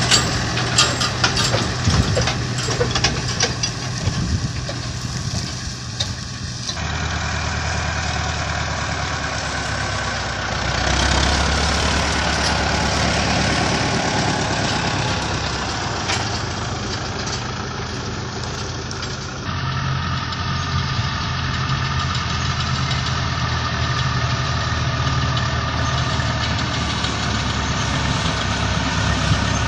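Fortschritt ZT 323-A tractor's diesel engine idling with a steady low hum, scattered clicks and crackles over it during the first few seconds. The engine sound changes character twice as the shots change, with other farm machinery running alongside near the end.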